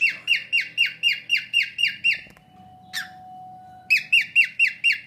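Pet bird calling in a fast, even run of short squawks, each dropping in pitch, about four a second; it breaks off a little past halfway, gives a single call, then starts the run again near the end.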